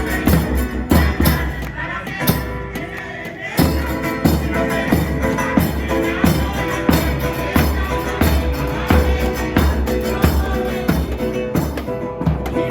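Music with a steady driving beat and heavy bass; the bass drops out briefly about two seconds in, then the beat comes back.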